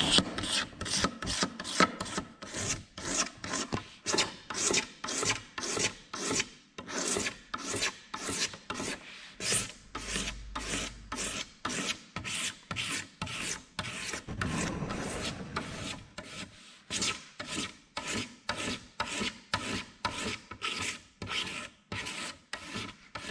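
Utility-knife blade scraping the enamel (outer skin) off a heat-treated bamboo strip held in a wooden block, in quick repeated strokes about two a second, blurring into a steadier scrape around the middle.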